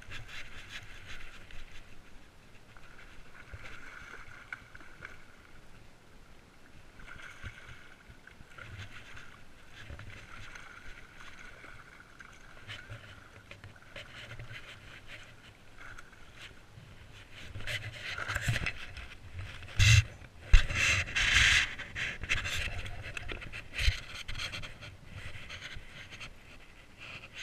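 A spinning reel is cranked in bouts, a faint whirring, as a hooked trout is reeled in. About two-thirds of the way through come loud rubbing and several sharp knocks as the body-worn camera is jostled against clothing.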